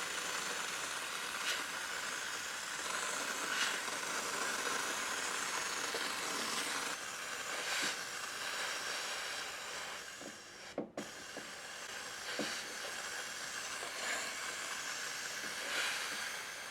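Steam cleaner's jet hissing steadily as steam is sprayed. It cuts off for a moment about eleven seconds in, with a couple of clicks, then resumes a little quieter.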